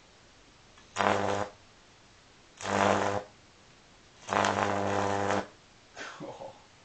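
High-voltage arc from a 2 kV microwave oven transformer running off mains, buzzing and hissing in three abrupt bursts, the first two about half a second long and the third about a second. A fainter, shorter crackle follows near the end.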